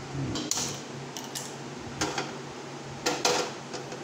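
A steel bowl and a wok knocking and clinking as they are handled: about six sharp metal clatters, the loudest pair about three seconds in.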